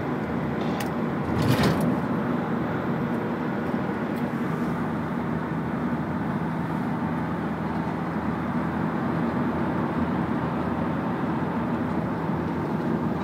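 Steady road and engine noise inside a moving vehicle's cabin at motorway speed, with a brief louder rush of noise about a second and a half in.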